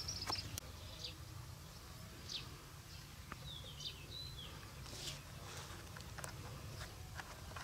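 Small birds chirping with short, quick calls over a steady low rumble, with a few sharp clicks scattered through.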